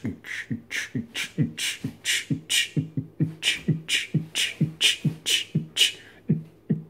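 A man beatboxing a fast, steady beat of mouth kick-drum thumps alternating with hissing hi-hat sounds, with a short break near the end.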